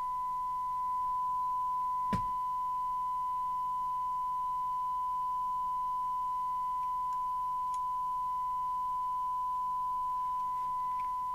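The Magpie Autoscan 5000 CB radio's loudspeaker plays a steady 1 kHz test tone, the signal generator's modulation demodulated by the receiver while it is tuned and set up. A single click comes about two seconds in.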